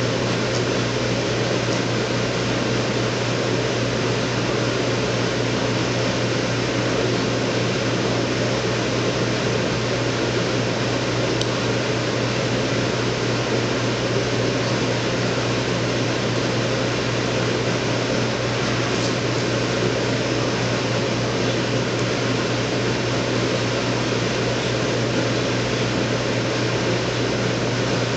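Steady, unchanging hiss with a low hum underneath.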